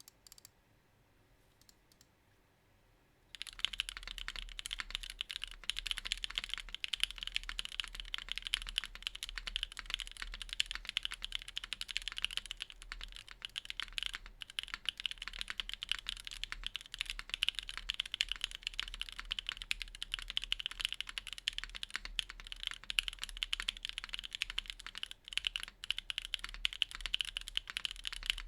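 Typing on a Keycult No. 2/TKL mechanical keyboard with stock Gateron Cream Soda linear switches, an aluminium plate in a gasket mount and GMK keycaps. A few separate key presses come first, then a fast, continuous run of keystrokes from about three seconds in.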